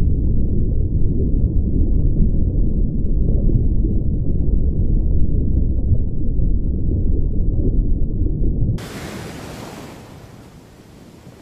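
Muffled low rumble of water heard through a camera held underwater. About nine seconds in it cuts abruptly to open-air sound at the shoreline: quieter surf and water splashing with a hiss of wind.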